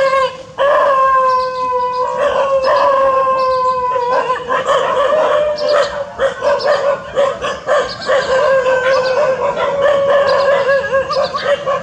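Dog howling: long held howls, falling slightly in pitch, for about the first four seconds, then shakier, broken howling with short yelps mixed in.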